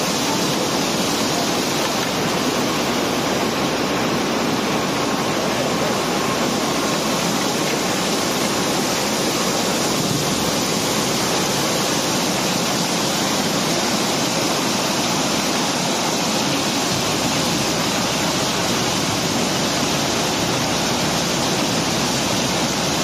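A steady, dense rush of cobblestones sliding and pouring out of a barge's hold during unloading.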